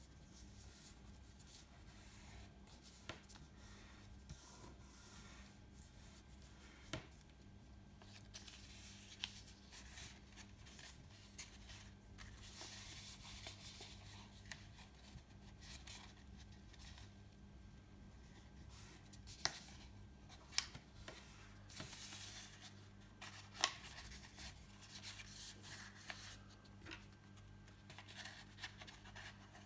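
A sheet of paper being folded and creased by hand: faint rustling and rubbing, with scattered sharp clicks and a few louder taps.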